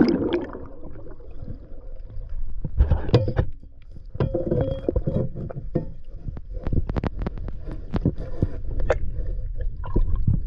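River water sloshing and gurgling around someone wading and feeling along the muddy bottom, over a steady low rumble. Scattered sharp clicks and knocks come thickest in the second half.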